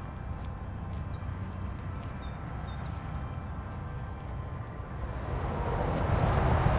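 Open-air ambience with a steady low rumble. A small bird twitters in a quick run of high chirps for a couple of seconds, then a rushing noise swells up and grows louder near the end.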